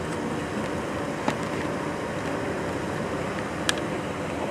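Steady background hum and hiss, like building ventilation, broken by two short sharp clicks about two and a half seconds apart.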